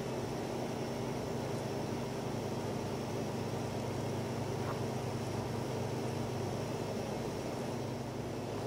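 Steady low hum with an even hiss, unchanging throughout: background room tone of a machine-like drone such as a ventilation fan.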